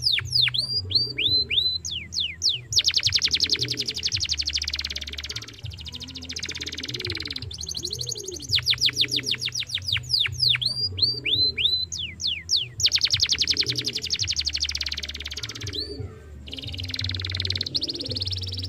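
Domestic canary singing a fast rolling song: long rapid trills alternate with runs of quick downward-sweeping whistles, phrase after phrase with short breaks between.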